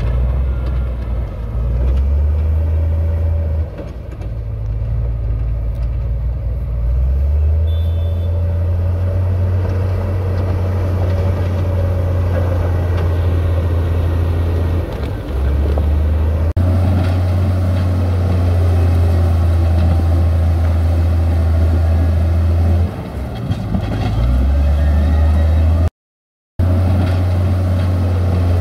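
Heavy earthmoving machinery's diesel engines running under load, a loud deep drone that swells and eases several times. It breaks off abruptly once and drops out completely for about half a second near the end.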